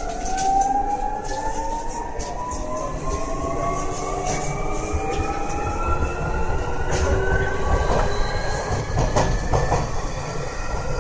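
Keio 1000 series train's VVVF inverter and traction motors whining as the train accelerates, several tones rising steadily in pitch together, over the rumble of the wheels on the track, heard from inside the car.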